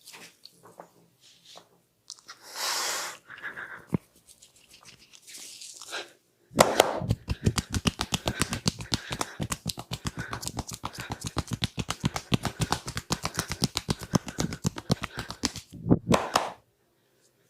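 Hands striking the head in quick succession during a percussive head massage: sharp slaps and taps, several a second, start about six seconds in and stop shortly before the end, after a few soft rubbing sounds.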